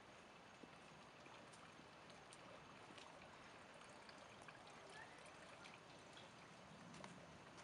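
Near silence: faint, even outdoor hiss with a few scattered small ticks.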